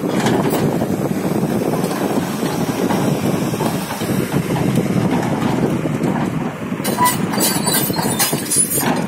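Hyundai crawler excavator's diesel engine running steadily under load, with the bucket scraping and crunching into a heap of broken bitumen slabs. About seven seconds in come a string of sharp clattering knocks as pieces of asphalt strike each other and the steel bucket.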